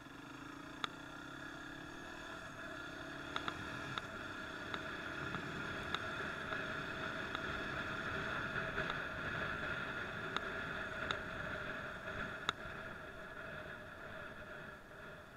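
Motorcycle riding noise picked up by a helmet camera: engine and wind getting louder as the bike pulls away from a stop and gathers speed, then holding steady at speed. A few sharp clicks come through at irregular moments.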